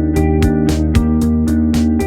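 Background music with a steady beat over held bass and chord notes.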